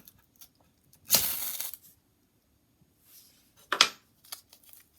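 Ferro rod scraped hard with coarse 60-grit sandpaper to throw sparks: a long rasping stroke about a second in, then a short sharp one near the end.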